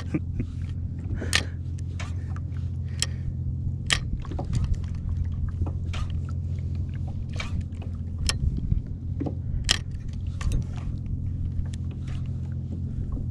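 Steady low engine hum, like a motorboat running, with scattered sharp clicks and knocks.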